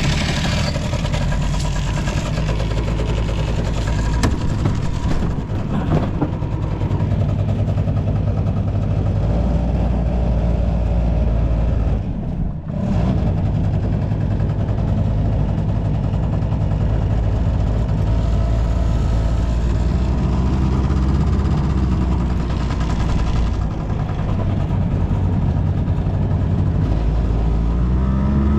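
Honda Cabina 90 scooter engine running steadily, with one brief drop in sound about twelve seconds in. It runs without any abnormal noise.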